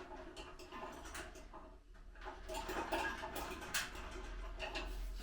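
Faint, scattered clicks and light knocks of hands handling barbecue parts and screws during assembly.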